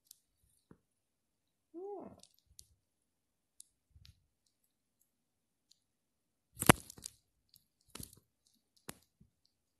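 Mostly quiet room with a short hummed 'mm' from a woman's voice about two seconds in, and scattered sharp clicks and taps from handling the phone, the loudest about two-thirds of the way through.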